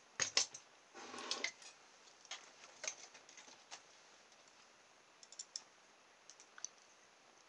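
Faint, scattered clicks and taps of small hand tools and a paper template being handled and set down on a plastic cutting mat. The loudest clicks come just after the start, with a brief rustle about a second in.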